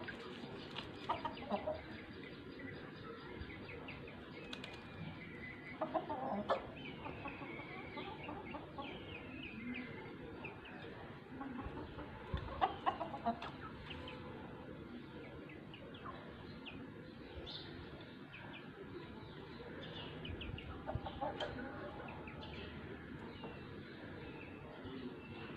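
Hens and roosters clucking and calling on and off, with a few louder clusters of calls about a quarter, half and four-fifths of the way through.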